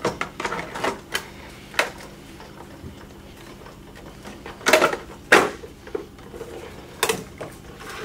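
Hard plastic clicks and knocks as the top shell of a Polaris 380 pool cleaner is pressed onto its body and the unit is handled, with two sharper knocks close together about five seconds in.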